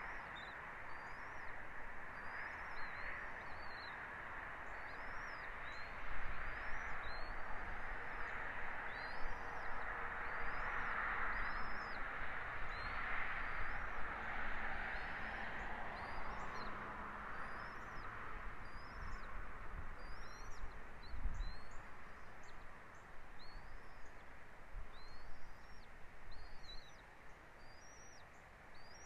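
A bird chirping over and over, short high calls that rise and fall, about one a second, over a steady outdoor hiss.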